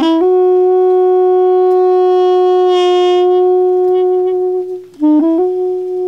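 Balaban, a Turkish double-reed pipe of apricot wood with a cane reed, holding one long steady note for nearly five seconds, then a brief break and a few quick changing notes near the end.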